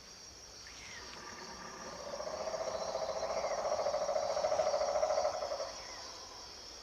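Tropical forest ambience: a steady high-pitched chorus of insects, with a lower, rapidly pulsing animal trill that swells about two seconds in and fades near the end.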